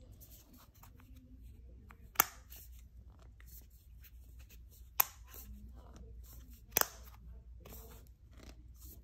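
Pump spray bottle of mineral sunscreen sprayed onto a hair extension in three short sharp bursts, about two, five and seven seconds in, the last a quick double.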